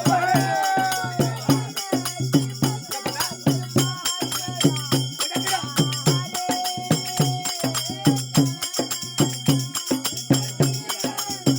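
Folk devotional music with jingling hand percussion keeping a quick, steady beat over a sustained low tone. A held sung or melodic line comes in briefly midway.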